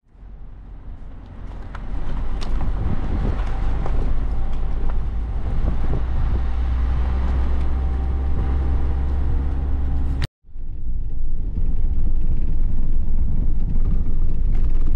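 Car driving on a cobblestone road, heard from inside the cabin as a steady low rumble of engine and tyres. It breaks off for a moment about ten seconds in, then carries on.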